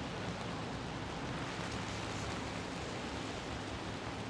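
Steady hiss of pouring rain, with a low hum of city traffic underneath.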